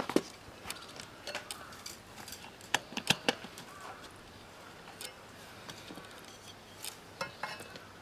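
Steel tyre levers clinking against an aluminium spoked motorcycle rim as a new knobby tyre's bead is levered onto the rim, in scattered sharp clicks and knocks, the loudest a few about three seconds in.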